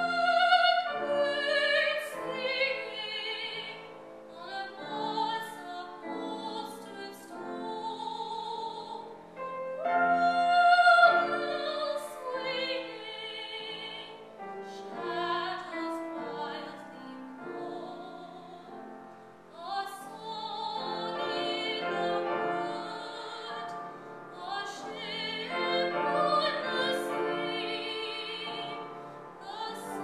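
Solo female voice singing a classical art song with vibrato, accompanied by a grand piano, in phrases separated by short breaths.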